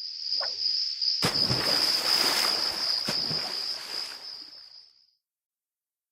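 Sound-effect crickets trilling steadily at night, with a loud rush of splashing water about a second in and a second splash about three seconds in. All of it fades out near the end.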